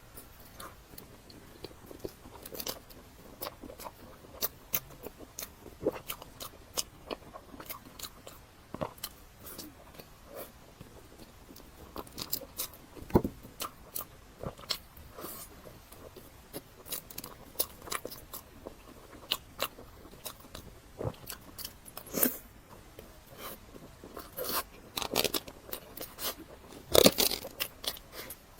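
A person chewing and eating soft cake, with many short, irregular wet mouth clicks and smacks.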